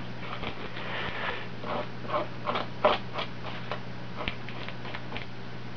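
A metal spoon scraping the scales off a sunfish, tail to head, in a run of short, irregular strokes.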